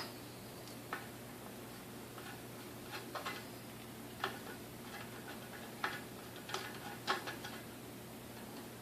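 Scattered light clicks and taps, a second or so apart, of hand tools and screws being worked on a vintage KitchenAid 3C mixer's housing during disassembly, over a faint steady hum.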